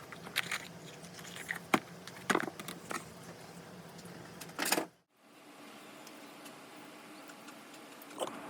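Light clicks and taps of silver bangles being handled and slipped on, several sharp ones in the first few seconds. The sound breaks off about halfway through, and a faint steady hum follows.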